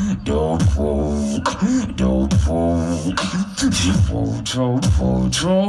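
A beatboxer performing into a handheld microphone. He layers held deep bass notes and sharp snare-like clicks in a steady rhythm, with a pitched vocal line that slides up and down over the beat.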